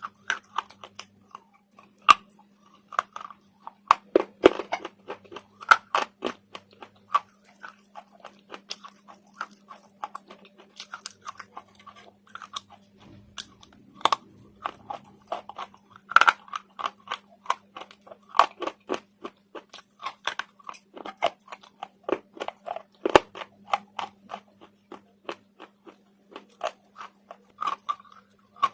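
Slate being bitten and chewed close to the microphone: a rapid, irregular run of sharp, brittle crunches with short pauses between bites.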